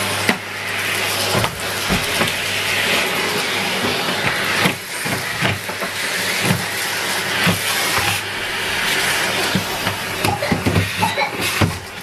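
Henry canister vacuum cleaner running with a steady hum and rush of air while its floor tool is pushed about on carpet, with repeated knocks and clatter that come thicker near the end.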